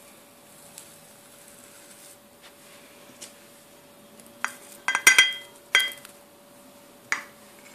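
Glass dessert bowls clinking against each other and against glass, a few sharp knocks with a brief glassy ring, the loudest cluster about five seconds in. A faint steady hum runs underneath.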